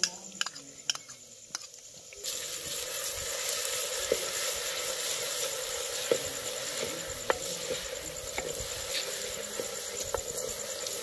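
Onions frying in hot oil in a clay pot: a steady sizzle that starts about two seconds in, with a wooden spatula stirring and knocking now and then against the clay. A few light clicks come before the sizzle begins.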